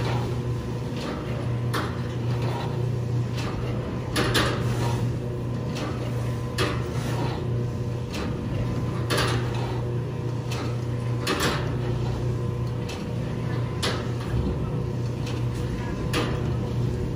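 Egg grading machine running with a steady motor hum, with irregular light clacks every second or two as eggs are fed in and carried along to the size trays.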